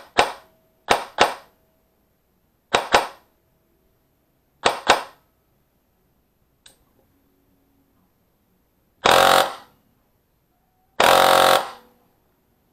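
EMG/Ares Warthog airsoft electric gun (AEG) firing: four quick pairs of single shots, a faint click of the fire selector, then two short full-auto bursts of about half a second each. The gearbox is tuned to run at about 40 rounds a second on an 11.1 V LiPo battery.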